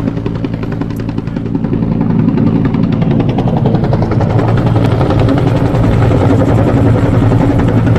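Helicopter rotor and engine running steadily, with a fast rhythmic blade chop, growing louder over the first two seconds and then holding.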